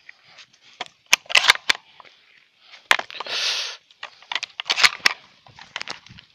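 Dry grass, stems and twigs crackling and snapping as someone pushes through dense brush on foot, in irregular clusters of sharp cracks. About three and a half seconds in, leaves brush against the microphone with a short rush of noise.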